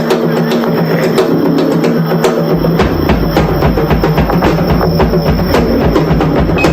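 Drum solo on a drum kit: fast, dense strikes over a steady low tone.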